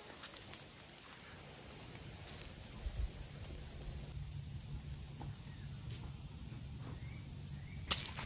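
Insects in summer woodland keep up a steady, high-pitched chorus with a low wind rumble beneath. Near the end a sudden loud rustle comes as a dog snuffles right against the microphone.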